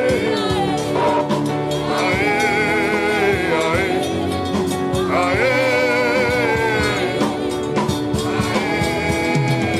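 Gospel song: a singer holds three long, wavering notes in turn over a steady instrumental backing.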